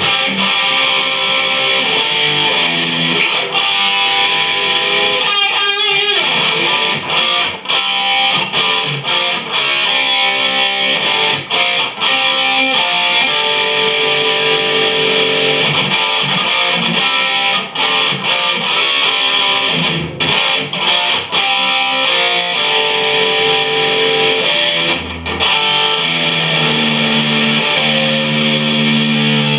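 Photogenic Les Paul-style bolt-on electric guitar, played with a pick: a solo of lead lines and held notes, with a few short breaks between phrases.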